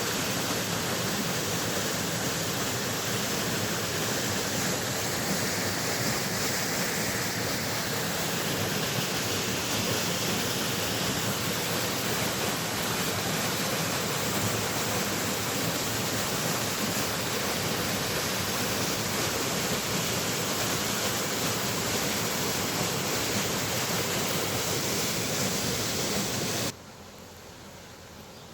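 River water rushing and falling in a steady, even roar, as at a weir. It cuts off suddenly near the end, leaving a much quieter outdoor background.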